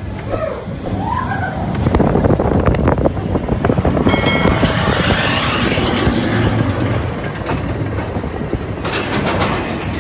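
Seven Dwarfs Mine Train coaster car rolling and clattering along its steel track, louder from about two seconds in. A quick run of sharp clicks comes near the end.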